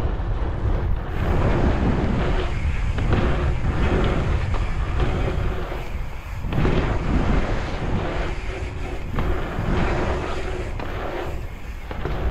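Wind rushing over the microphone of a camera on a moving bicycle, with the rumble of tyres on asphalt; the noise swells and eases as the bike speeds up and slows through the track, dipping briefly about halfway and again near the end.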